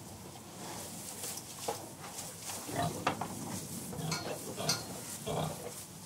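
Pigs in a farrowing pen: several low grunts in the second half, over constant rustling and light clicking.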